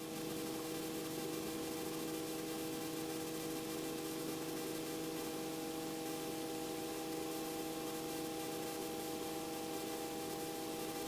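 Steady hiss with an even, multi-tone hum from a running Robinson R44 helicopter, picked up through the cockpit intercom audio feed.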